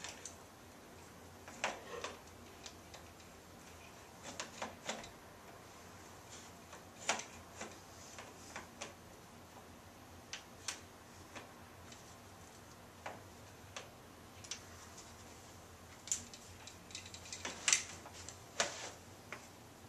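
Scattered light clicks and taps of a camera with its quick-release plate being handled and fitted onto a Manfrotto 322RC2 joystick head, irregular and spaced out, with a quicker run of sharper clicks near the end.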